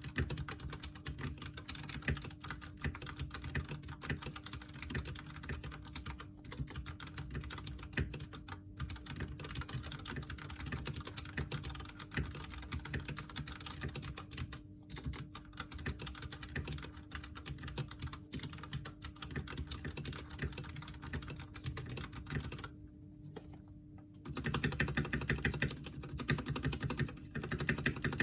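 Typing on a stock Royal Kludge RK98 mechanical keyboard with RK Red linear switches: a rapid, continuous clatter of keystrokes. About 23 seconds in it pauses briefly, then resumes louder and heavier.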